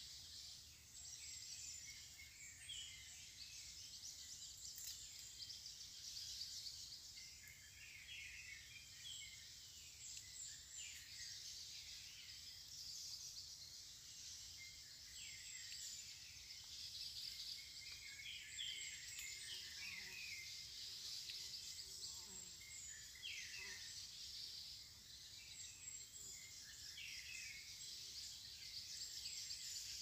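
Forest birds chirping and calling faintly, many short high notes and quick whistled glides, over a steady high buzz of insects.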